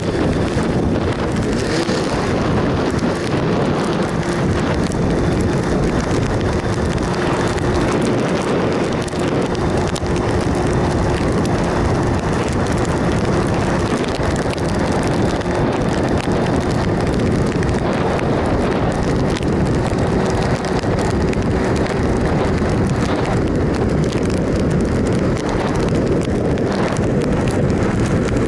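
Wind rushing over the microphone of a moving motorcycle, with the steady running of a 2007 Triumph Sprint ST 1050's three-cylinder engine under it and a faint steady tone holding throughout.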